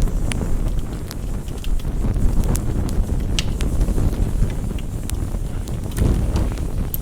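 Campfire crackling, with sharp, irregular pops over a steady low rushing noise.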